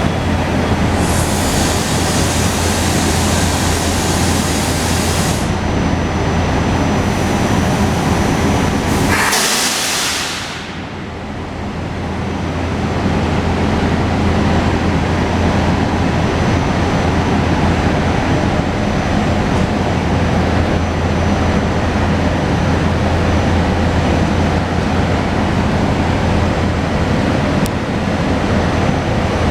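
SEPTA Regional Rail train at an underground station platform, a steady low hum and rumble. A hiss runs for about four seconds near the start, and a sharper, louder hiss comes about nine seconds in.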